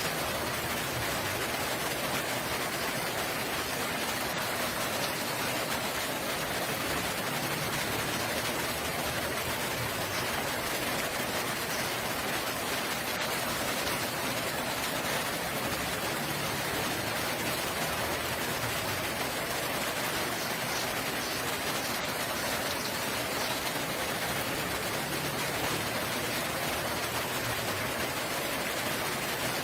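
Steady rain falling, an even unbroken hiss with no let-up.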